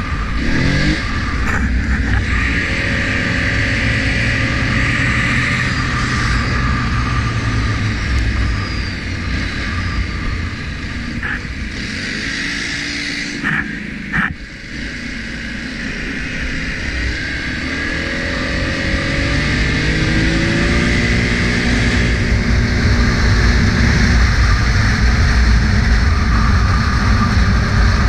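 ATV engine running while being ridden. Its note eases off a little after halfway, where there are a couple of sharp clicks, then climbs as the throttle opens and stays up.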